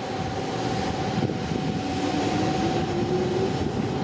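Hanshin 8000-series electric train pulling out and accelerating away, a steady rumble of running gear with a faint whine that rises in pitch over a couple of seconds, over a constant high tone.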